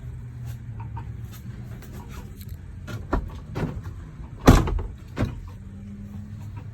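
An RV's rooftop air conditioner knocking and clunking with nothing switched on, over a low steady hum. Four knocks come a little past halfway, the loudest about two-thirds of the way in. Customer service puts the noise down to the unit's fan being turned by high wind.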